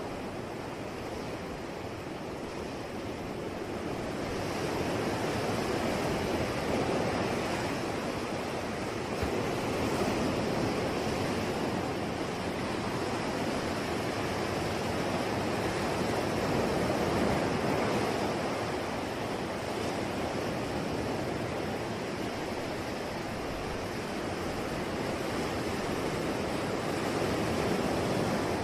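Ocean surf: waves breaking and washing in as a steady rush, swelling and easing in slow surges every several seconds.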